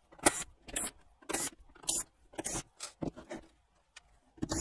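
Screwdriver turning screws out of a CD player's sheet-metal bottom cover: short scraping turns about twice a second, with a short pause near the end.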